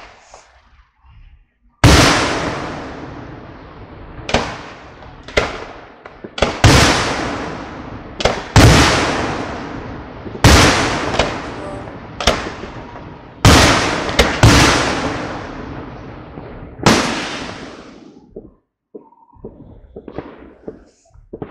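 Aerial firework shells bursting, about a dozen sharp booms, each trailing off in a long rolling echo. The booms come every second or two and thin out near the end.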